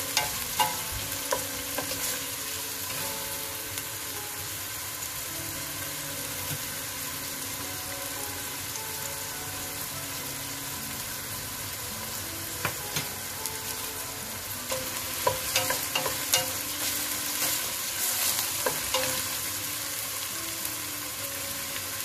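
Chopped onions sizzling in hot olive oil in a stainless steel pot, being sautéed to a light brown. A wooden spoon scrapes and taps the pot in the first couple of seconds, and a cluster of louder pops and clicks comes about two-thirds of the way through.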